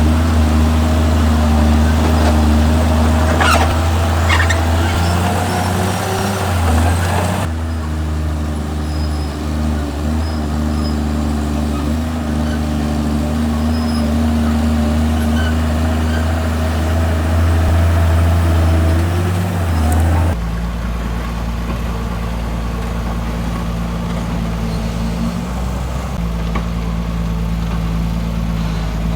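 Heavy diesel construction machinery, a bulldozer and dump trucks, running steadily under load with a deep, even engine drone. The drone changes abruptly twice, at about a quarter of the way in and again about two-thirds of the way in, and there are a few sharp clanks or squeals early on.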